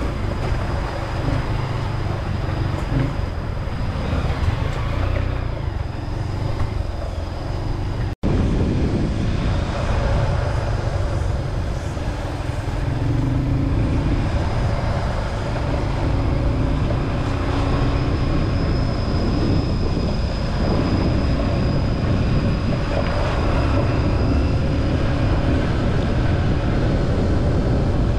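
Dual-sport dirt bikes riding a rough mountain trail: steady engine and wind noise heard from a bike-mounted camera. The sound cuts out for an instant about eight seconds in.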